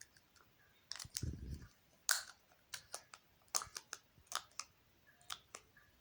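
Plastic packaging of an eyeball-shaped jelly candy clicking and crackling in a run of short, irregular clicks as it is pried open by hand, the candy being hard to open. About a second in there is a short dull thud.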